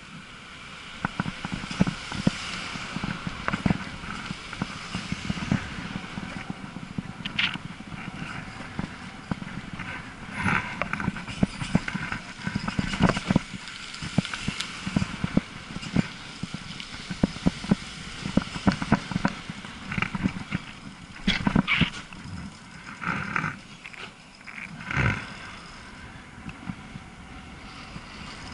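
E-bike riding along a town street: a steady low rumble from the ride with frequent short knocks and rattles, and a few louder bursts between about 20 and 25 seconds in.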